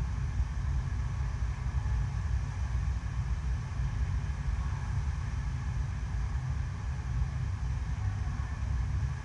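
Steady rush of water pumped up an artificial sheet-wave surf ride, with a constant low rumble underneath.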